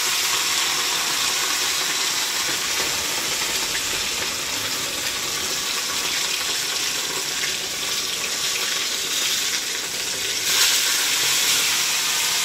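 Whole unfloured fish frying in very hot oil in a frying pan, a steady sizzle. About ten seconds in the sizzle flares up louder as a second fish goes into the oil.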